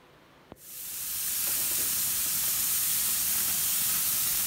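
Raw ground-beef burger patties sizzling on the hot grates of a gas grill: a steady, loud hiss that begins abruptly after a click about half a second in.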